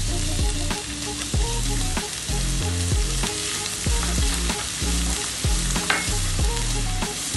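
Chopped onion and garlic sizzling in oil in a non-stick frying pan as they are stirred and scraped with a silicone spatula, a steady hiss broken by regular light scrapes and taps.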